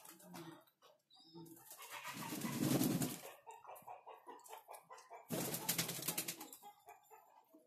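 Racing pigeons bathing in a shallow basin of water: two bouts of splashing and wing-flapping in the water, one starting about a second and a half in and a shorter one about five seconds in, with pigeons cooing in between.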